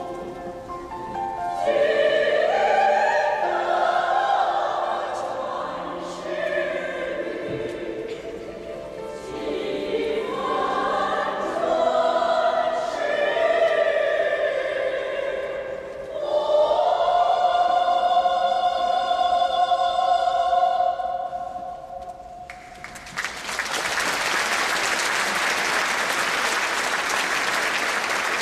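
A choir sings the final phrases of a song and ends on a long held chord. Near the end, audience applause breaks out and carries on.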